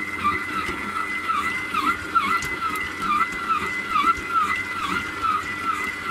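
Aobosi 6L stand mixer running at speed 3 with its dough hook kneading a stiff bread dough: a steady motor whine that dips in pitch about twice a second, in a regular rhythm.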